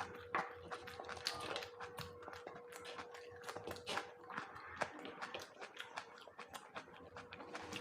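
Close-up chewing and wet mouth smacks from someone eating boiled eggs, many irregular clicks a second, over a faint steady hum.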